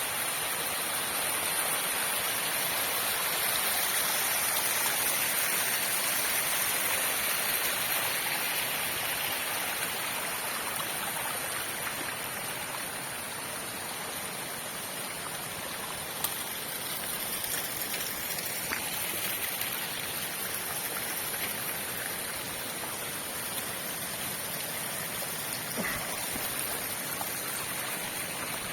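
Waterfall pouring and splashing: a steady rushing hiss that eases slightly after about ten seconds.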